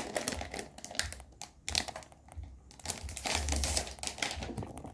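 Protective plastic wrap being peeled and crinkled off a new tablet, irregular crackling rustles with small clicks.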